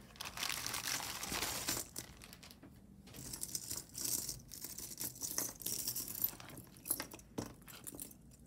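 Packaging crinkling and rustling as it is handled, densest over the first two seconds, then in scattered bursts with a few sharp small clicks.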